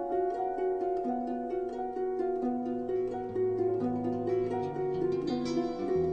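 Instrumental music led by quick plucked-string notes over held tones, with a deeper bass line coming in about a third of the way through.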